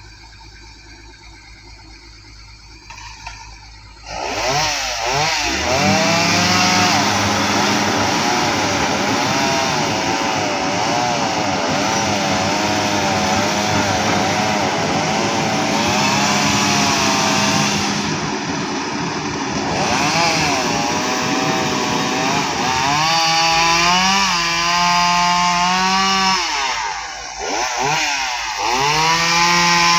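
Komatsu hydraulic excavator working: faint for the first few seconds, then its engine and hydraulics run loud from about four seconds in, the pitch swinging up and down as the boom and bucket move, and stepping up and down near the end.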